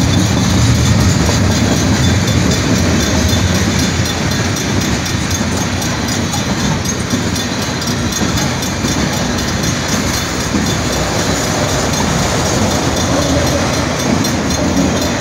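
Train rolling past at a level crossing: a steady rumble of cars and wheels on the rails.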